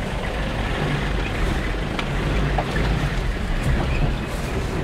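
A vehicle driving: steady engine and road rumble with a few light knocks and rattles.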